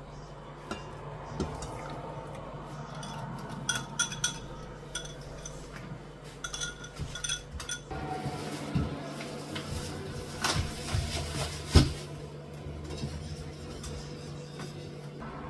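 Cutlery and dishes clinking and knocking as kitchen work goes on, a string of sharp clinks, the loudest a little after the middle, over a steady low hum.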